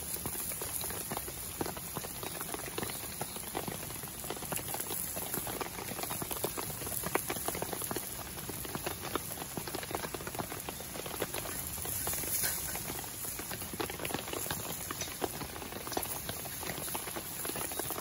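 Vegetables frying in butter and soy sauce in a pan over a campfire: a steady sizzle with dense crackling.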